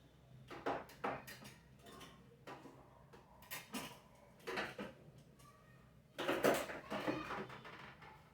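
Irregular knocks and clicks of vacuum cleaner parts being handled. About six seconds in comes a longer, louder clatter.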